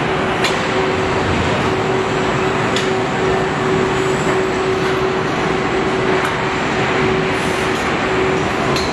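Car body assembly plant machinery running: a steady mechanical din with a constant hum and a few sharp clicks.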